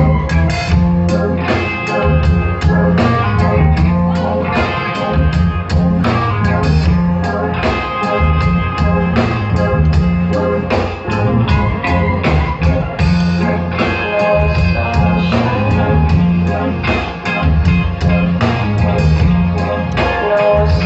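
Rock band playing live: electric guitars, keyboard and drum kit over a steady beat.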